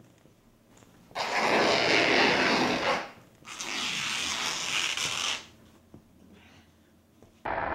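Plastic zip-top bags rustling and rubbing as they are handled and hung on bare tree branches, in two bouts of about two seconds each.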